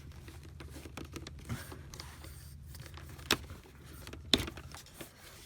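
Handling of an Oreck upright vacuum cleaner's plastic parts as a twist-off fitting holding its tube is worked loose: small rattles with two sharp clicks, about three and four seconds in, over a steady low hum.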